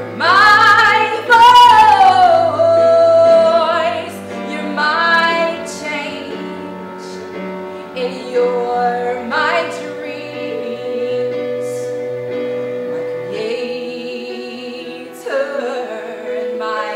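Woman singing long, sliding vocal runs into a microphone over sustained backing chords, loudest in the first few seconds of the passage.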